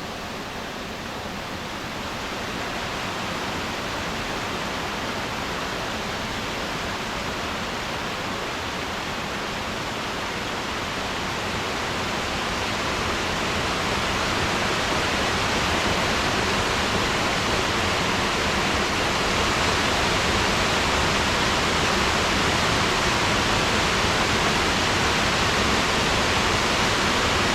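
Waterfall, falling water rushing in a steady hiss. It grows gradually louder from about two seconds in and levels off for the last third.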